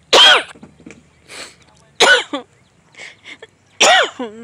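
A woman sobbing: three sharp, high-pitched cries about two seconds apart, each rising then falling in pitch and breaking off quickly.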